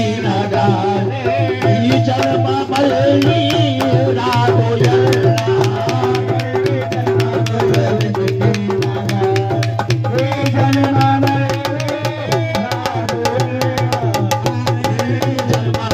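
Sufi devotional music (kalaam) with tabla-style drumming under a held melody; about ten seconds in, the beat grows dense and quick.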